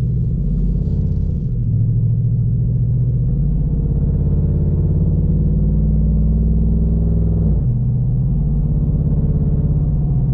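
2018 Chevrolet Silverado 1500 V8, fitted with a fresh Airaid Jr cold air intake, heard from inside the cab while driving. The engine note rises in pitch as the truck accelerates, then drops suddenly at a gear change about seven and a half seconds in and settles into a steady cruise.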